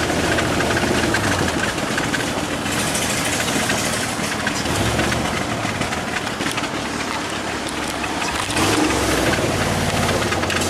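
Vehicle engines running and road noise while driving, with the low engine note changing pitch about five seconds in and again near the end.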